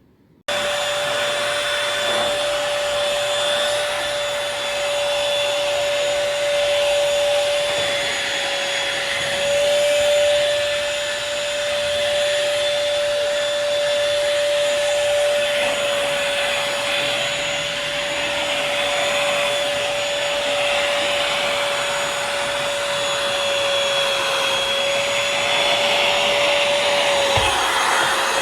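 Eureka corded stick vacuum running with a steady high whine over airflow hiss. It starts abruptly right at the beginning, and the whine's pitch sags slightly twice.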